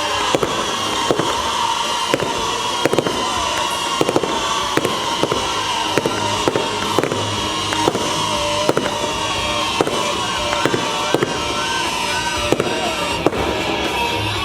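Fireworks going off in quick, irregular pops, several a second, over music playing underneath.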